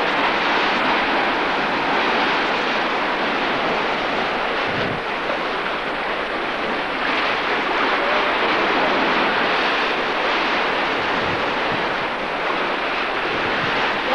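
Wind blowing across the microphone over the steady rush of surf on a beach, with a few low buffets from gusts.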